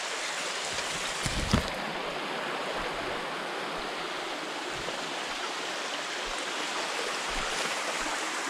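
Shallow stream running over rock shelves, giving a steady rush of water. A single short knock comes about a second and a half in.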